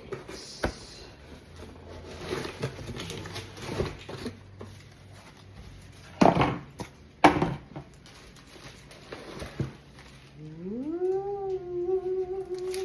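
Rustling and knocking of packaging being handled during an unboxing, with two louder knocks about six and seven seconds in. Near the end an animal's drawn-out call rises in pitch, then holds steady for about three seconds.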